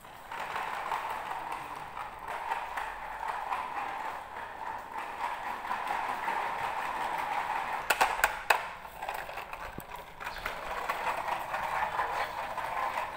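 Plastic wheels of a toy dump truck rolling and rattling over tile floor as it is dragged on a string. A few sharp clicks come about eight seconds in.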